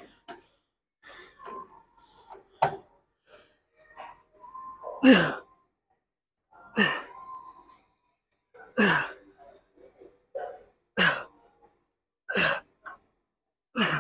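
A man exhaling hard, with a short falling grunt, on each pull of a one-arm cable row, about every two seconds from about five seconds in. A single sharp click comes a few seconds before the first grunt.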